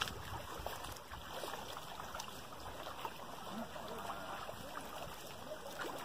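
Footsteps wading through an ankle-deep sandy stream: irregular soft sloshing and splashing of water around the feet.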